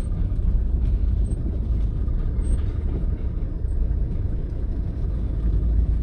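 Steady low rumble of a car driving on a dirt road, heard from inside the vehicle: engine and tyre noise.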